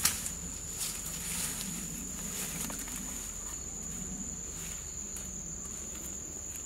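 Insects buzzing in one steady, unbroken high-pitched tone, with a sharp knock right at the start and faint scattered rustles.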